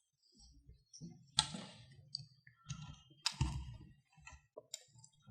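Clicks and rustling from handling a strip of 35mm film and a developing-tank reel, with a few sharper clicks, the strongest about a second and a half in and again past three seconds.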